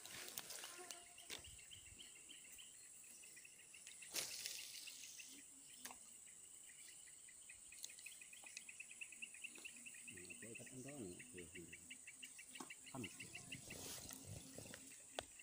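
Faint insect chirping: a rapid, even train of high pulses over a steady high hiss, with a few soft knocks from handling the rod.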